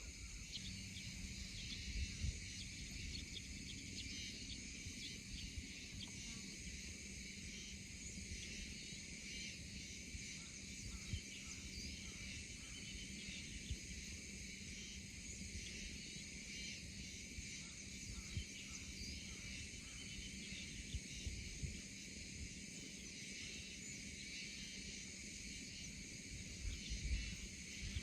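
Steady chorus of insects such as crickets chirring, with faint low rumble and a few soft knocks.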